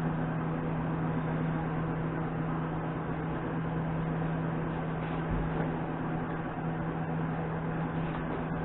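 Steady mechanical hum with one low droning tone, unchanged throughout, and a single faint knock about five seconds in.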